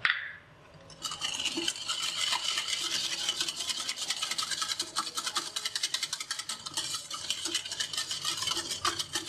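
Cake batter of butter, sugar, eggs and milk being beaten in a bowl: a fast, even run of scraping strokes against the bowl, starting about a second in.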